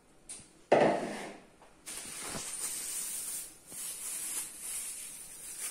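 A knock about a second in as the plastic flour bowl is set down on the table, then a thin plastic bag rustling and crinkling steadily as the dough is unwrapped from it.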